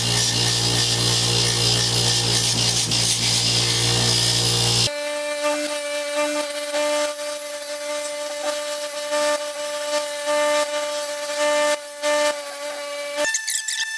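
Bench grinder motor running with its wire wheel scrubbing a metal hand plane part, a harsh rasping hiss over the motor's hum, which stops abruptly about five seconds in. After that only background music is heard.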